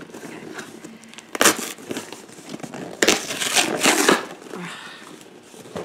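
Plastic packaging crinkling and rustling as it is handled and pulled open: a short burst about a second and a half in, then a longer, louder stretch in the middle.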